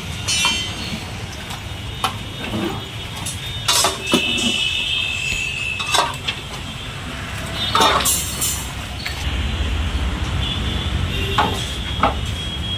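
Scattered clinks and knocks of metal serving utensils at a street biryani stall, over a steady low hum of street traffic, with a brief high-pitched squeal about four seconds in.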